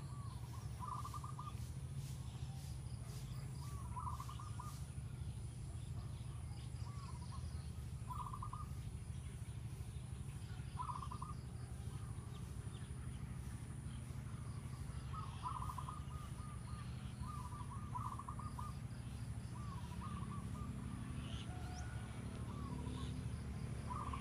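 A bird calling over and over, each call a short, quick run of notes repeated every few seconds, over a steady low rumble.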